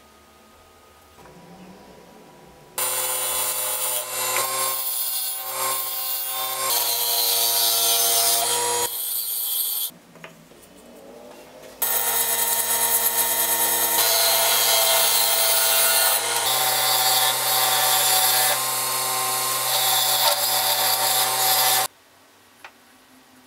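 Wood lathe running with sandpaper held against a spinning lime-wood maraca body: a steady rubbing hiss over the motor's hum. It comes in two long stretches, starting about three seconds in, with a quieter break about ten seconds in, and cuts off near the end.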